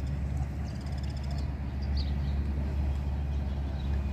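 A steady low rumble with small birds chirping over it, including a quick trill about a second in.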